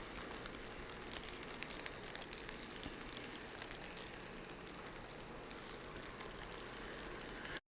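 Faint snowstorm ambience outdoors: a steady hiss sprinkled with small, irregular ticks, like sleet or snow pattering. It cuts off abruptly near the end.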